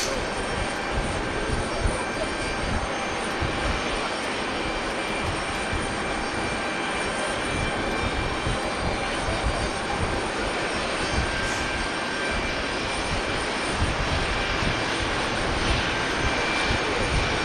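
Boeing 737-500's CFM56-3 turbofan engines running: a steady rush of jet noise with a few thin steady whining tones on top, growing slightly louder near the end.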